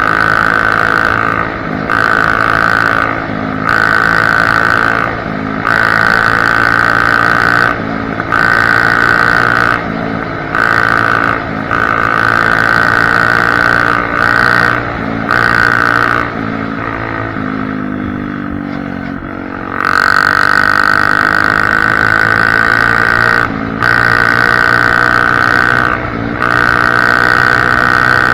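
Honda CRF250F dirt bike's single-cylinder four-stroke engine running at speed through an exhaust with no baffle. The throttle is cut and reopened every second or two, with a longer easing-off about two-thirds of the way through.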